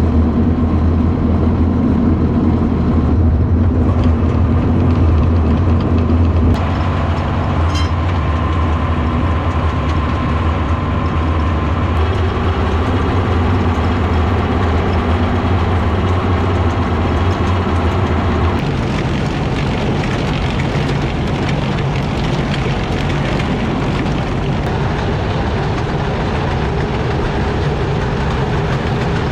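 Farm tractor engine running steadily with a deep hum, its sound changing abruptly a few times.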